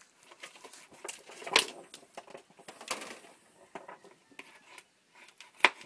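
Scattered clicks and knocks of a knife and chicken pieces being worked on a cutting board during butchering, with a sharp knock about a second and a half in and another near the end.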